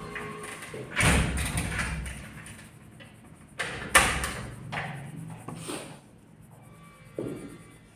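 Paper sheets and coloured pencils being handled on a table: several knocks and thuds, the loudest about four seconds in, the first followed by a brief rustle.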